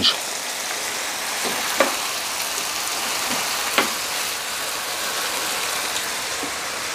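Bacon and other meats frying on a Blackstone electric griddle's flat top: a steady sizzle with a couple of sharp pops, about two and four seconds in.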